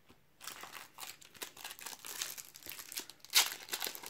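Foil wrapper of a Panini trading-card sachet crinkling as it is handled and torn open, with a louder burst of crackle about three and a half seconds in.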